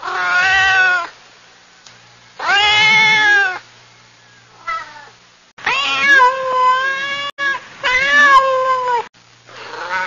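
Domestic cat meowing again and again: two meows of about a second each, a faint short one, then two longer, drawn-out meows back to back.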